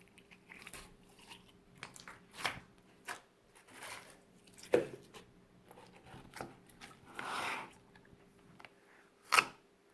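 Clear slime being squeezed and stretched in the hands, making irregular sticky clicks and pops.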